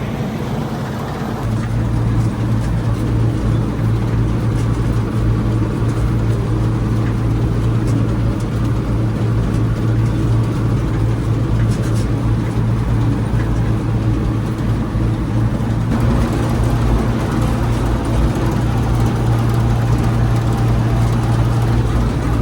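Bizon combine harvester running steadily, a continuous low engine-and-machinery drone that steps up in level about a second and a half in and then holds even.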